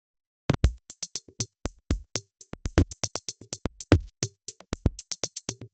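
Drum machine playing an eight-beat rock pattern: kick, snare and hi-hat in a steady even rhythm. It starts about half a second in and cuts off near the end.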